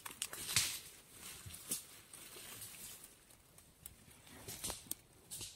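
Dry grass and fallen leaves rustling and crackling as a hand pushes them aside, with scattered small snaps; the sharpest crackles come about half a second in and again near the end.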